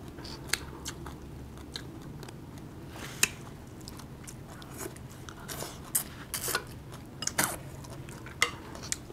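People chewing food close to the microphone, with scattered short mouth clicks, more of them in the second half.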